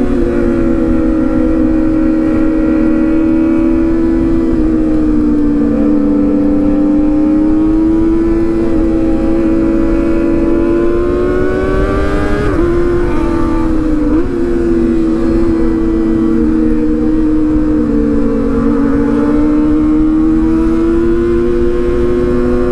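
Kawasaki four-cylinder sport motorcycle engine held at high revs, giving a steady high whine whose pitch eases down and climbs back several times as the throttle changes, over wind rumble on the microphone.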